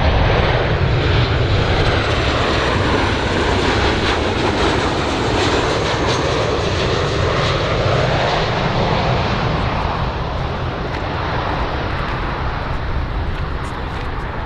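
Turbofan engines of a Boeing 737-800 (BBJ2) airliner on final approach, a loud, steady jet rush with a faint high whine, its tone slowly sweeping up and down as the aircraft passes, easing a little in the second half with a few crackles near the end.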